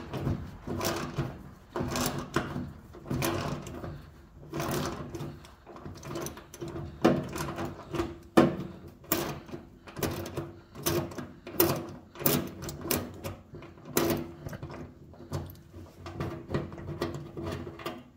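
Hand ratchet clicking in repeated strokes while backing out fender bolts, over a steady low hum.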